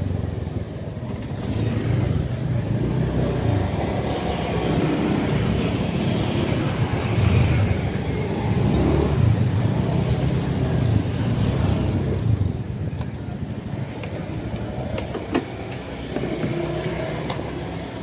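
A motor vehicle on the move: a continuous rumble of engine and road noise.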